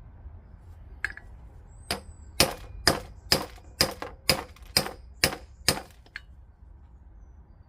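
A run of about a dozen sharp metallic strikes, roughly two a second, each with a brief ring: a 1¼-inch socket being struck to drive a new fork seal down into a motorcycle fork leg.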